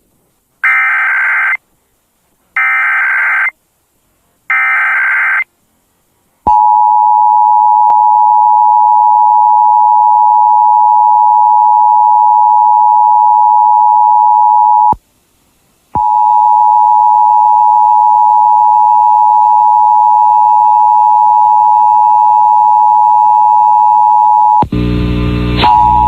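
Emergency Alert System test tones over FM radio. Three short bursts of digital SAME header data come about a second apart, then the steady two-tone attention signal. The attention signal drops out for about a second partway through and resumes, with a brief burst of other audio mixed in near the end.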